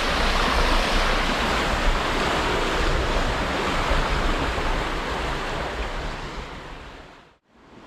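Strong current of water rushing through a concrete irrigation outlet, a steady rushing noise. It fades away over the last few seconds and drops out to near silence for a moment near the end.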